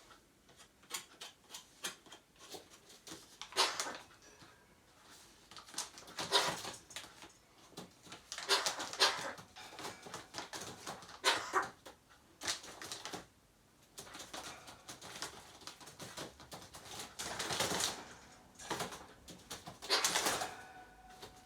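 Pet Eurasian magpie giving short, harsh, noisy calls, one after another at irregular intervals, among many quick clicks and taps.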